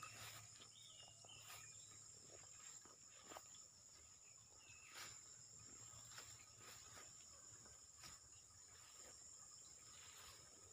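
Near silence outdoors with a faint, steady insect chorus, a thin high drone of crickets or cicadas, and a few faint scattered clicks.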